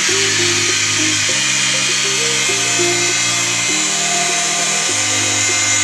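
Small angle grinder with a green abrasive disc running steadily, grinding the end of a black PVC pipe, heard as a high hiss under background music.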